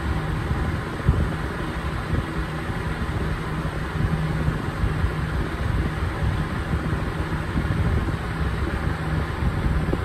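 20-inch House To Home box fan running steadily: a continuous rush of air, like white noise, over a steady low hum, with an uneven low rumble underneath.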